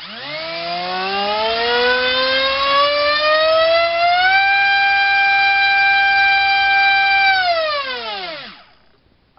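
Multistar Viking 2208 2600 kV brushless motor spinning a Gemfan 6030 propeller on a 3-cell battery under thrust test: a loud whine that rises steadily in pitch for about four seconds, holds at its top speed for about three, then winds down and stops about a second before the end.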